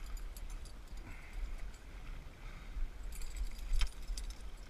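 Wind rumbling on the microphone, with small metallic clicks and rattles of a fishing rod and casting reel being handled in an aluminium boat, and one sharp click near the end.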